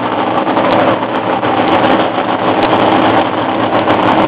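Vintage NASCAR stock cars, a 1972 Dodge Challenger and a Plymouth Superbird, idling with their V8 race engines, a loud, steady idle.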